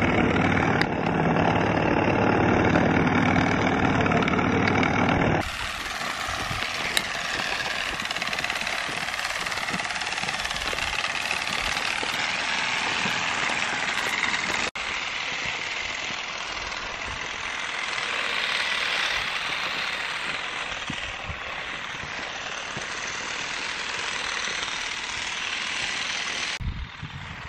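Battery-powered motorized olive rake (an olive harvester) running, its vibrating tines rattling continuously as they shake olives from the branches. About five seconds in the sound turns a little quieter and thinner.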